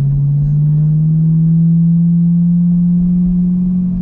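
Chevrolet Corvette C8's 6.2-litre LT2 V8 through a Corsa Xtreme exhaust, driving on light throttle: a steady exhaust drone whose pitch rises slowly as the revs climb.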